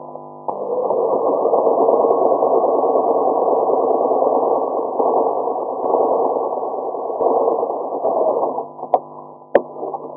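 Sewing machine running, stitching steadily for about eight seconds before it stops, then two sharp clicks near the end. It sounds muffled.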